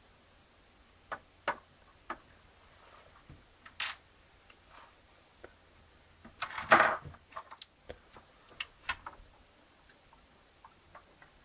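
Scattered light clicks and taps from small handling while cleaning thermal compound off chips, with a louder brief rubbing scuffle about six and a half seconds in.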